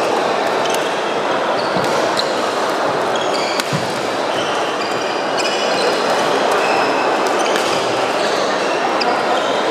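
Badminton play on several courts: many short squeaks of shoes on the court floor and sharp taps of rackets striking shuttlecocks, over a steady din of the hall.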